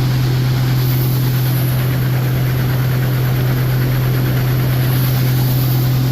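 Combine harvester running steadily, its diesel engine and machinery giving a constant deep hum with an even rush of noise above it.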